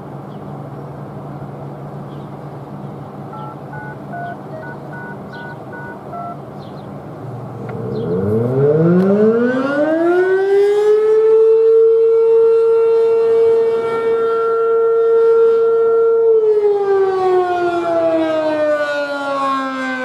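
ACA P-10 single-tone rotating siren winding up from a low growl to a high, steady wail over about three seconds, holding, then sliding down in pitch as the rising and falling full attack signal begins. Before the siren starts, a steady low hum with a few short beeps.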